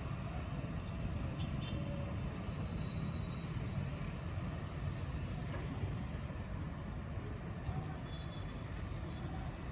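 Steady low rumble of road traffic and vehicles.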